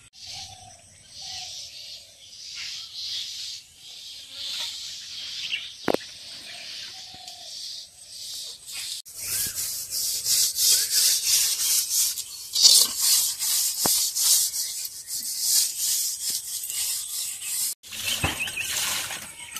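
Brisk rhythmic scrubbing, about three strokes a second, as a steel utensil is scoured by hand, filling the second half. Near the end, water poured from a cup splashes over a metal pot. Before the scrubbing there are outdoor sounds with a few short bird calls.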